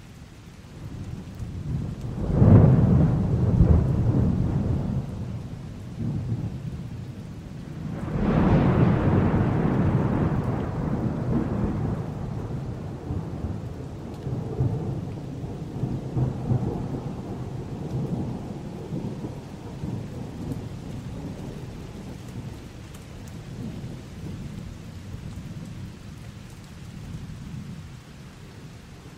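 Thunderstorm with steady rain: a loud thunderclap about two seconds in and a second one about eight seconds in, each rolling off into a long low rumble that fades slowly.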